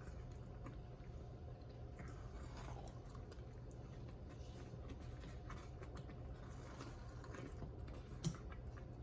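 Faint, scattered small clicks and handling sounds over a low steady hum, with one sharper click near the end.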